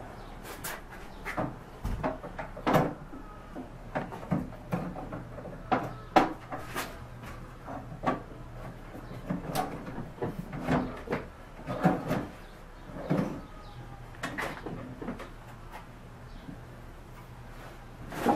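Wooden drawers being slid into a walnut credenza's case and pushed into place: a string of irregular knocks and clicks of wood and drawer hardware, a few of them sharp.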